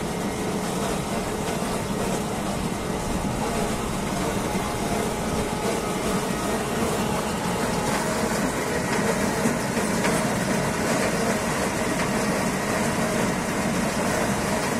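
Mobile apple mill and press running steadily, grinding apples into pulp, with an even mechanical hum.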